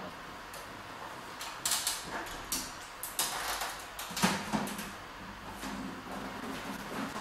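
Clicks, knocks and rattles of a salon hood dryer's plastic visor and hood being lifted and swung away, with the loudest knock about four seconds in.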